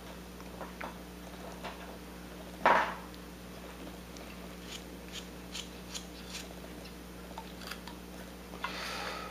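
A hand-held V-tool making small cuts in wood: faint, scattered clicks and scrapes as the edge slices chips. A short, louder breath about three seconds in.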